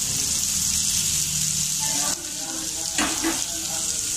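Chopped onions sizzling steadily in hot oil in a steel kadai, frying toward golden, with a short knock about three seconds in.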